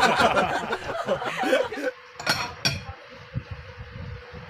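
A metal spoon and fork clinking against a ceramic plate of rice, with two sharp clinks a little after halfway. A short stretch of a woman's voice comes before them.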